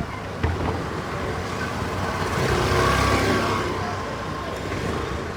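Busy street traffic: engine and tyre noise of motor vehicles, with one passing close and loudest about halfway through before easing off. A short knock sounds near the start.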